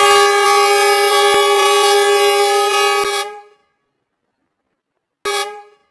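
Diesel locomotive's air horn sounding one long, steady blast of about three seconds, then a short second blast near the end.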